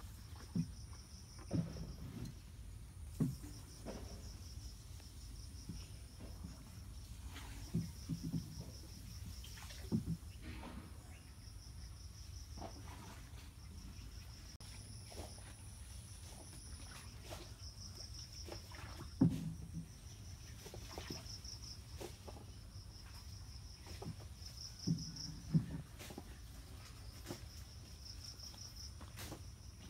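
Insects chirring in a steady, rapidly pulsing high trill with short breaks. A few dull knocks from the small wooden boat come through here and there, with two of the loudest about two-thirds of the way through.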